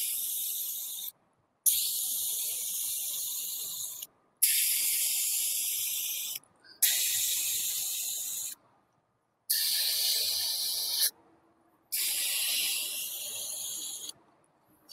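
Aerosol spray-paint can spraying in about six long bursts of roughly two seconds each, with short pauses between. Each hiss starts sharply and tapers off a little.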